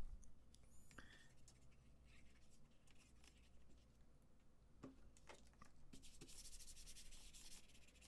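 Faint rubbing of a cloth wiping a laptop's plastic palm rest, louder in the last two seconds, with a few faint light taps before it.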